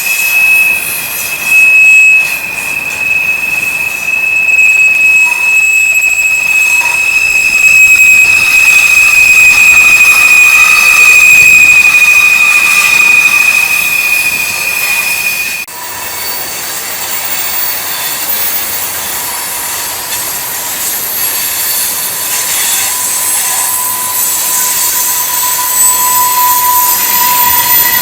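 Freight train wheels grinding through a curve, with a steady high-pitched flange squeal. About halfway through, the squeal cuts off suddenly and a lower squeal takes over, growing stronger toward the end.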